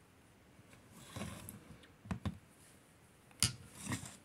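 Metal air-rifle valve parts clicking and tapping together as they are handled and fitted, with a soft rustle and then a handful of sharp clicks, the loudest about three and a half seconds in.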